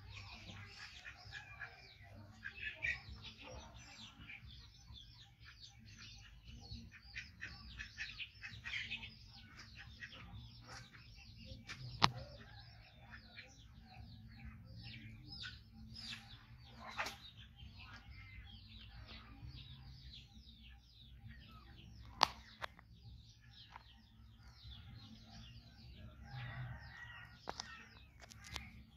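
Small birds chirping steadily in the background, many short chirps overlapping, with a low hum underneath and two sharp clicks, one near the middle and one about ten seconds later.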